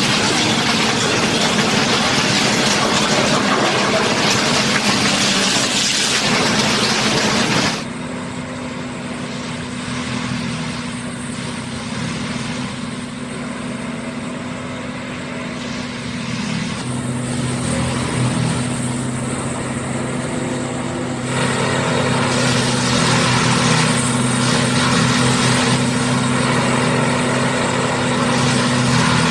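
Diesel engines of yellow rail-mounted track-construction machines. For the first several seconds a machine runs close by with a loud, dense rushing noise. It then cuts abruptly to a steady, lower engine hum from a machine approaching on the track, which grows louder about two-thirds of the way through.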